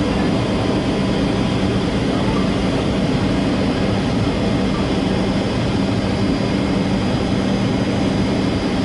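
Steady cabin noise inside a Boeing 757-200 in flight: the jet engines' drone and the rush of airflow, with a constant low hum and no changes.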